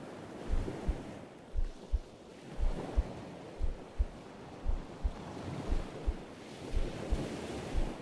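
A slow heartbeat, a lub-dub double thump about once a second, over the soft wash of ocean surf and wind.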